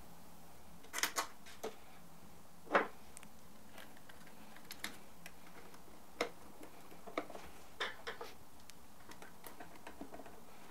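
Scattered light clicks and taps of a Phillips screwdriver and small screws as screws are driven to fasten a burr grinder's gearbox and motor assembly to its plastic frame, with one louder knock about three seconds in.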